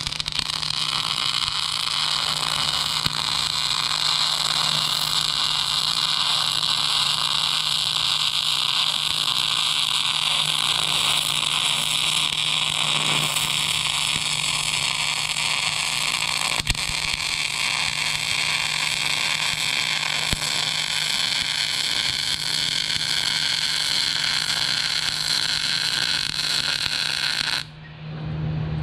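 MIG welder running one continuous bead on the steel gooseneck hitch plate, a steady hiss that stops abruptly about a second before the end as the arc is broken.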